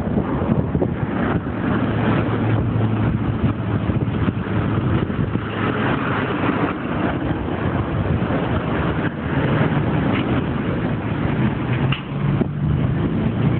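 City street traffic: a steady wash of passing cars, with a low engine hum.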